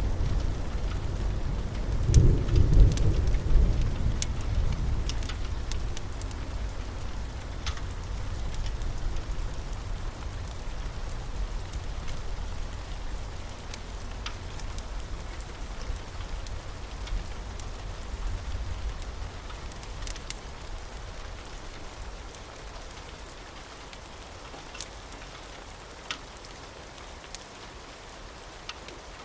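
Rain falling steadily, with a rumble of thunder that peaks a couple of seconds in and slowly dies away. Scattered sharp ticks sound over the rain.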